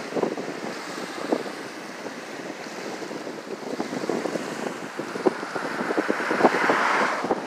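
Small waves lapping and splashing on a sandy shore, with wind buffeting the microphone. The rush grows fuller near the end.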